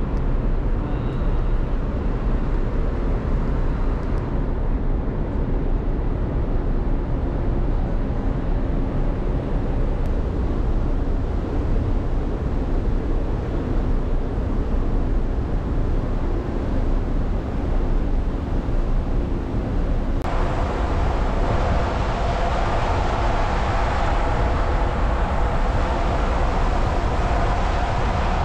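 Steady low rumble of a ferry under way, heard from its deck with wind on the microphone. About two-thirds of the way in, the sound changes abruptly and a broad hiss of water rushing past the hull joins in.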